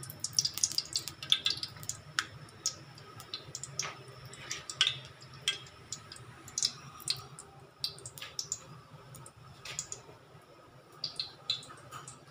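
Cooking oil being poured into a wok and then heating in it on an electric cooker, with irregular small crackles and pops scattered throughout. A steady low hum runs underneath.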